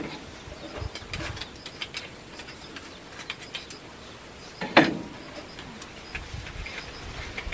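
Scattered light clicks and taps of small kitchen containers being handled. About five seconds in, one short animal call falls in pitch.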